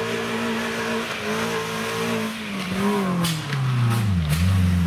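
Off-road 4x4's engine held at high revs as it crawls along a steep forest slope, then the revs fall away about three seconds in and settle lower. A few sharp cracks come near the end.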